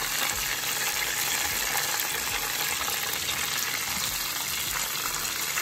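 Battered cod fillets deep-frying in hot oil in a pot: a steady sizzle with fine crackling.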